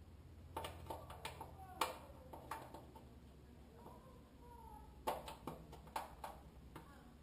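Scattered light clicks and taps of a hand working a fitting on the sheet-metal front panel of a Hobart Stickmate LX stick welder, with a couple of faint squeaks near the middle and a low hum underneath.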